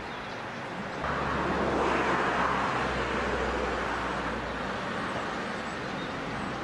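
A motor vehicle passing, its engine and tyre noise coming in suddenly about a second in, swelling, then slowly fading, over a steady low hum.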